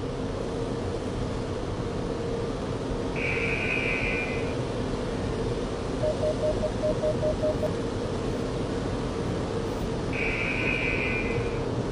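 Steady mechanical hum, like a fan or blower. Two longer high electronic tones sound about seven seconds apart, and a quick run of about four beeps a second comes midway.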